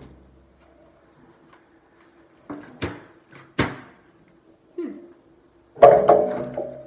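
Nerf Skyblaze ammunition box and packaging being handled: a few sharp plastic or cardboard clicks and knocks around the middle, then a brief pitched sound near the end, the loudest thing.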